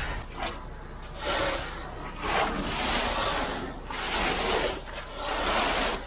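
Concrete hand tools working wet concrete: a float and a rake scraping and swishing across the fresh slab in a run of strokes, roughly one a second.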